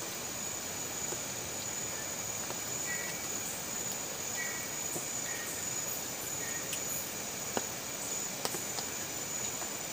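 Insects droning steadily at one high pitch over an outdoor rural background hum, with a few faint short chirps and a couple of small clicks near the end.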